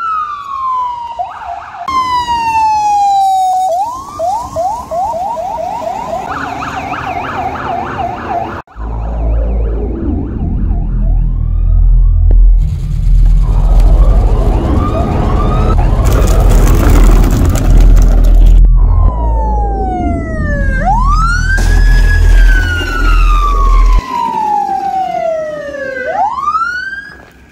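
Police car electronic siren from a Code 3 system, switching between a slow rising-and-falling wail and a fast yelp, with abrupt changes of tone. A deep rumble runs underneath through the middle stretch.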